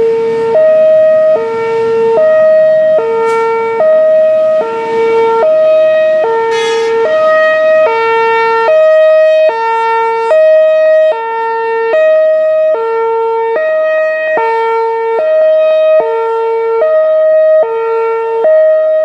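Whelen Vortex R4 rotating electronic warning siren sounding its Hi-Lo signal: a low and a high tone alternating, each held for under a second.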